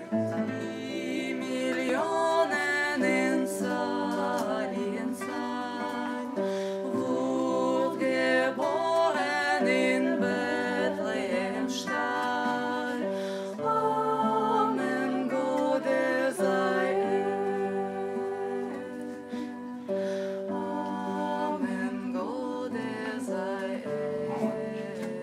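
Acoustic guitar playing a wordless passage, with a voice humming along in places.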